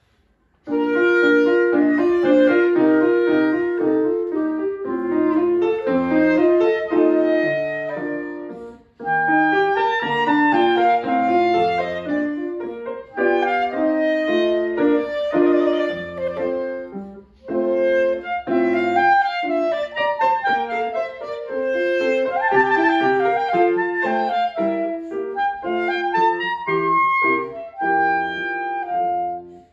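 Clarinet and grand piano playing a classical duet, the clarinet carrying the melody over piano chords. The music starts about half a second in and pauses briefly twice between phrases.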